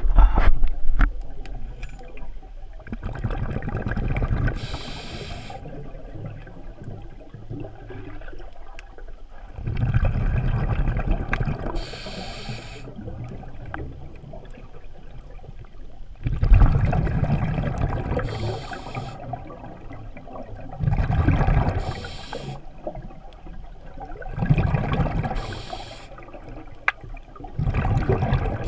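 Scuba diver breathing through a regulator underwater, about six breaths. Each breath is a loud rumbling gush of exhaled bubbles followed by the short hiss of the inhale through the regulator, with a quieter murmur of water between breaths.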